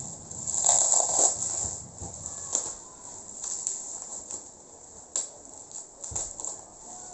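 Rustling and crinkling with scattered light clicks and knocks, as packaging and an air rifle are handled.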